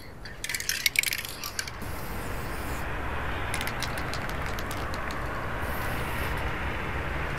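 Sharp metallic clicks and knocks in the first two seconds, then a steady low rumble with a hiss of outdoor ambience and a few scattered ticks.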